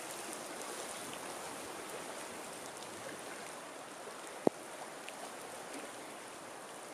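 Steady hiss of water, with faint scattered ticks and one sharp click about four and a half seconds in.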